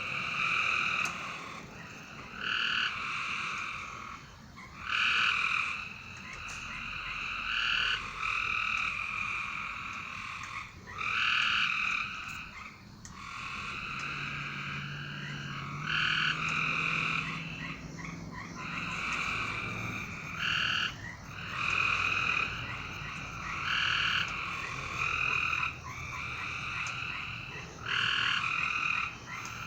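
A chorus of frogs calling over a steady background of more frogs, with louder calls about half a second to a second long breaking in every one to two seconds.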